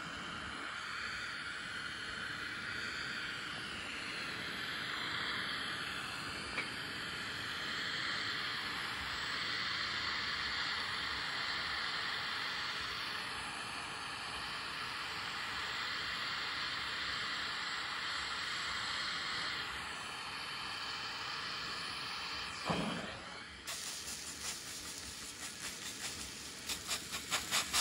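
Gas torch flame hissing steadily, the flame turned down low, as it heats a sword blade to temper it. Near the end there is a single knock, then water is spritzed from a spray bottle onto the hot steel in quick repeated squirts, about three a second.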